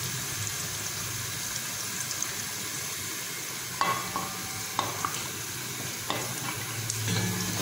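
Eggplant slices frying in hot oil with a steady sizzle while a wooden spatula lifts them out. About halfway through come three sharp knocks, roughly a second apart, as the spatula strikes the cookware.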